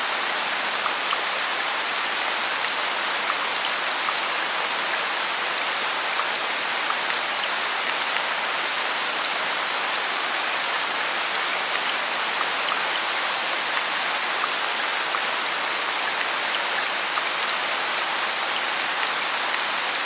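Steady heavy rain falling on foliage and ground, a dense even hiss with scattered individual drop hits.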